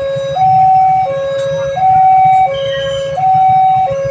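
Railway level-crossing warning siren sounding a steady two-tone hi-lo alarm, each note held about 0.7 s and repeating without a break, the signal that a train is approaching the crossing.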